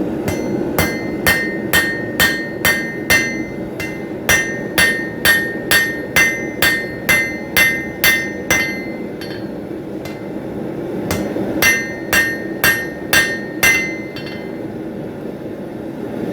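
Forging hammer striking hot steel on an anvil, the anvil ringing with each blow. The blows come at about two a second in three runs, a pause of about a second between the first two runs and a longer one before the last, over a steady low roar.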